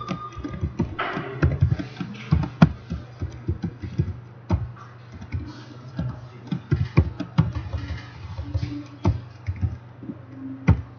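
Computer keyboard keys clacking in quick, irregular runs as code is typed, over a steady low hum.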